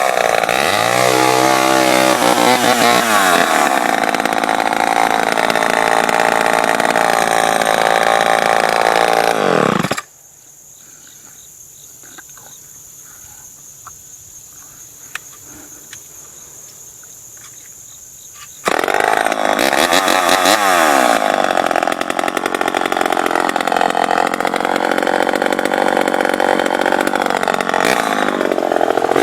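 Homelite Super XL two-stroke chainsaw running hard, its engine pitch dropping and rising as it is revved. The sound cuts off suddenly about ten seconds in, there are about eight seconds of much quieter sound, and then the saw comes back at full revs.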